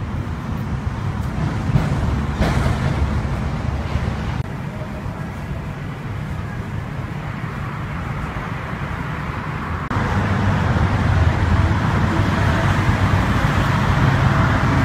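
Steady outdoor background noise, a low rumble with a hiss, that changes abruptly in level about 2.5, 4.5 and 10 seconds in and is loudest after the last change.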